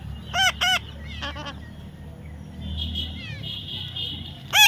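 Parrot squawking in short, harsh, arched calls: two loud ones about half a second in, a few softer calls and a buzzy chatter after them, and another loud squawk at the end.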